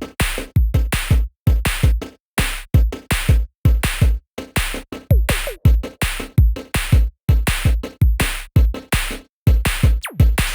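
Electronic music with a hard drum-machine beat: dense, regular kick and percussion hits with deep bass thumps and quick falling-pitch sweeps.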